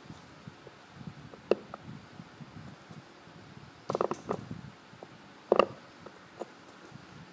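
Seal-carving knife cutting into a Helan stone seal: a few short, sharp scraping clicks, one about a second and a half in, a small cluster around four seconds and the loudest near five and a half seconds, with faint handling rustle between.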